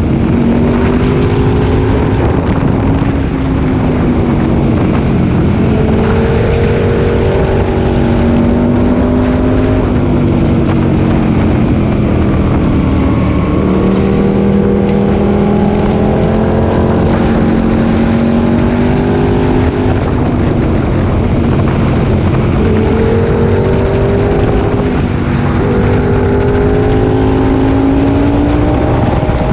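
Aprilia Tuono 1000R's V-twin engine under way, its pitch rising and falling over several seconds at a time with several steps in pitch, as the rider works the throttle through a run of bends. Wind rush on the microphone runs underneath.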